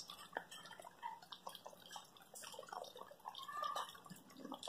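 Faint water dripping and light splashing into standing floodwater, a scatter of small irregular plops.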